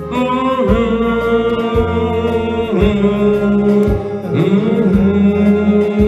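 Karaoke machine playing a song's backing track: long held melody notes over a steady low drum beat about once a second, with a sliding note about two-thirds of the way in.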